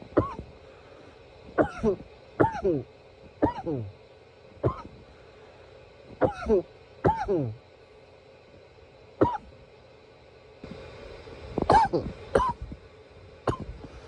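A man coughing over and over in short bouts of one to three coughs, each cough sliding down in pitch, with pauses of up to a couple of seconds between bouts.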